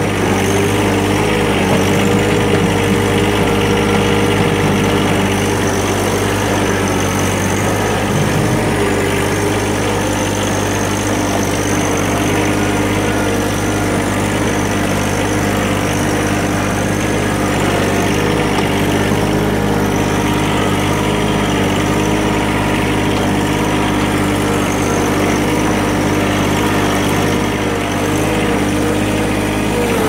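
John Deere 1-series compact tractor's three-cylinder diesel engine running at a steady pace as the tractor drives, heard close from the operator's seat.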